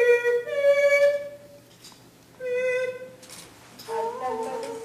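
A violin playing a few slow held notes, with a pause of over a second between phrases.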